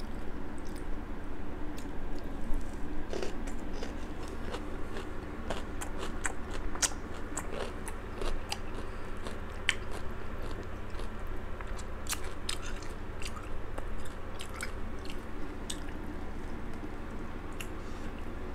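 Close-miked eating sounds of a person chewing and biting crab meat, with wet mouth clicks and smacks at irregular intervals over a steady low hum.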